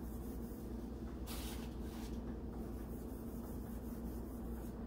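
Quiet kitchen room tone: a steady low electrical hum, with one brief scraping or rustling noise a little over a second in.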